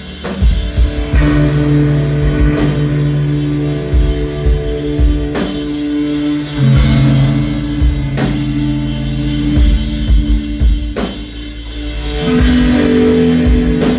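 Instrumental post-rock band playing live and loud: electric guitars and bass holding long notes that change chord every few seconds, with a drum kit striking heavy accents about every two and a half seconds.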